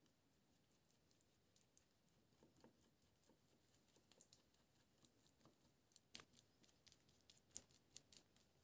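Near silence with faint, scattered small clicks and taps, a few slightly louder ones about six to eight seconds in.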